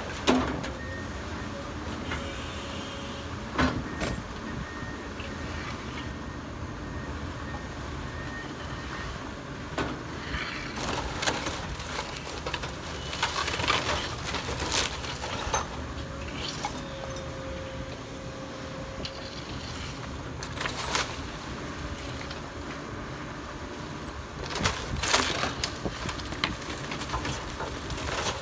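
Komatsu hydraulic excavator's diesel engine running steadily while its bucket tears into a demolished house, with scattered crashes and cracks of splintering wood and falling debris, the sharpest near the start, a few seconds in, and near the end.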